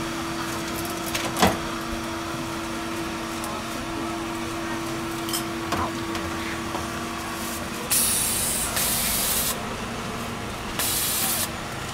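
A sharp knock about a second and a half in, then two bursts of hissing spray near the end, each about a second long, over a steady hum.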